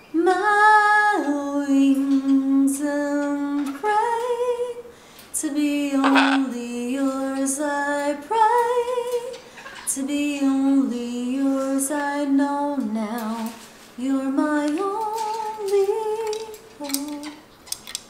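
A woman singing a slow melody in long held notes, with short breaks between phrases.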